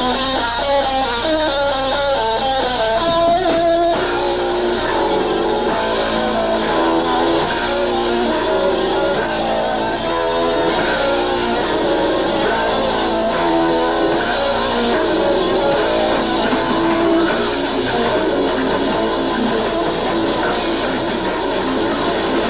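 Death metal band playing live, led by distorted electric guitar riffing over bass. A fast line of quickly changing guitar notes gives way, about four seconds in, to a steadier riff of repeated, held chords.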